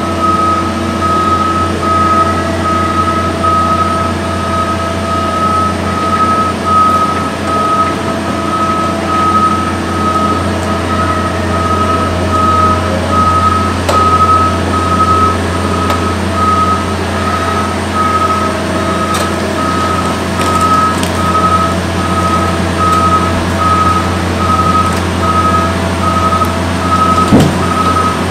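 Vehicle reversing alarm beeping steadily, about three beeps every two seconds, over the low, steady running of a heavy diesel engine. A brief louder noise cuts in near the end.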